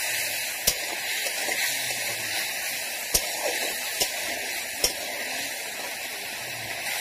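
A wet onion, ginger-garlic and spice masala sizzling and bubbling in a metal kadai while it is stirred with a spatula, being fried down. The spatula scrapes the pan and knocks sharply against the metal four times.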